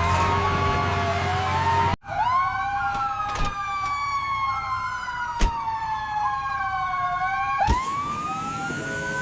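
Fire engine siren wailing in slow sweeps that rise and fall in pitch, broken by an abrupt cut about two seconds in.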